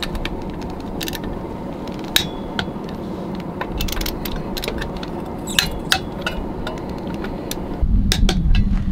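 Sharp metallic clicks and clinks, a handful spread irregularly, from a long-handled wrench working the lug nuts of an RV trailer wheel, over a steady low rumble.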